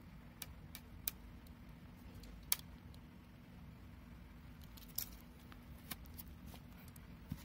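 Faint, scattered sharp clicks and crackles as a shrink-wrapped cardboard album box is handled, with the loudest click about two and a half seconds in. A steady low hum runs underneath.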